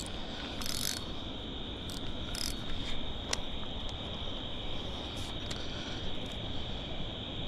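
A steady, high-pitched chorus of crickets trilling at dusk, with a few faint clicks over it.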